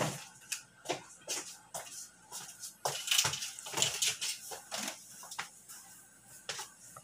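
Irregular knocks, clatters and rustling from a person getting up from a desk chair and moving about. The noise is busiest a few seconds in.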